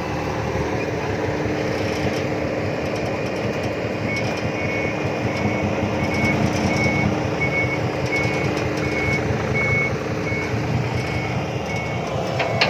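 Diesel dump truck engine running, with a reversing alarm setting up a steady run of short beeps a few seconds in.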